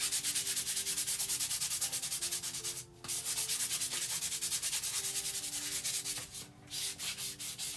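Fine 600-grit sandpaper rubbed by hand in fast back-and-forth strokes over the painted wood of a small box, smoothing down the acrylic paint layer. The strokes pause briefly about three seconds in and again near the end.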